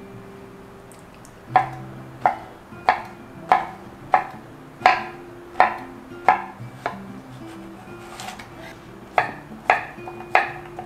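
Chef's knife chopping mushrooms and zucchini into small dice on a wooden cutting board: a sharp knock with each stroke, about one every two-thirds of a second, with a pause of about two seconds past the middle. Soft background music plays underneath.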